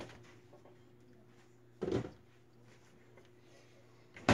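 Household knocks and clatter from someone moving things about out of sight: a short knock at the start, a louder clatter about two seconds in, and a sharp knock near the end. A steady low hum runs underneath.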